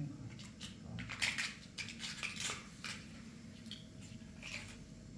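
Small hard items clicking and clinking as they are handled, a cluster of short clicks from about a second in to three seconds, then a few more near the end, over a low steady background hum.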